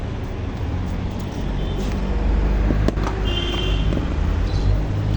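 Low rumble of road traffic, a motor vehicle passing close by, growing louder toward the middle.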